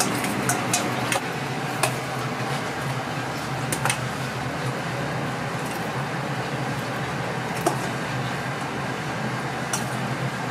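Metal spoon clinking against a stainless steel mixing bowl, a few scattered sharp clinks, as sauced fried chicken is tossed and spooned out. Under it the steady hum of kitchen ventilation.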